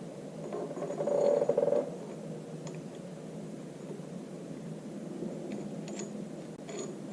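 Small metal parts being handled on the tractor's power take-off shaft: a short rasping scrape about a second in, then a few light metallic clicks.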